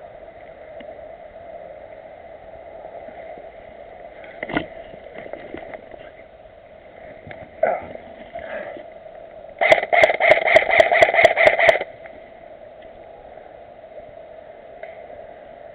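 An airsoft gun firing a quick string of about ten sharp shots over two seconds, about ten seconds in, over a steady hiss.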